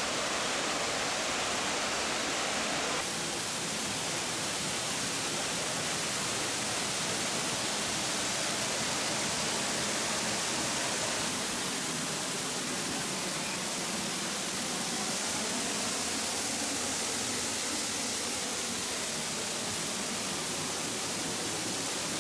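Waterfall rushing, a steady noise of falling water spread across all pitches.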